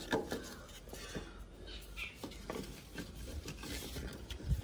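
A splintered wooden block scraping and knocking against a Swaraj 744 XT tractor's front axle as it is worked into place by hand, a makeshift wedge to carry the tractor on its punctured front tyre. A low thump comes near the end.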